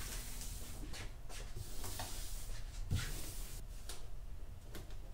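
Clear plastic template sheeting rustling and blue masking tape being pulled and pressed down onto the boat deck by hand: irregular short scratchy rustles, with a soft thump about three seconds in.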